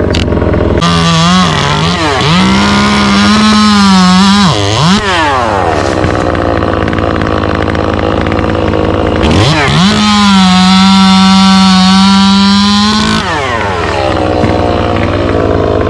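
Chainsaw revved to full throttle in two bursts of about four seconds, dropping back to idle in between. The first burst dips in pitch briefly twice.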